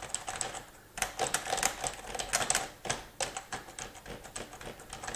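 Typing on a computer keyboard, a quick irregular run of key clicks, as picked up by a BOYA BY-M1 omnidirectional lavalier microphone clipped to the typist, with a short pause about a second in.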